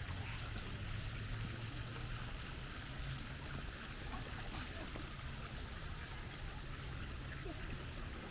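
Small fountain jets splashing and trickling into a shallow garden pool, a steady water sound, with people's voices in the background.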